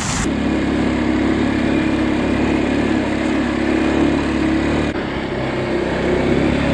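A small motor vehicle's engine running steadily, with a brief dip about five seconds in.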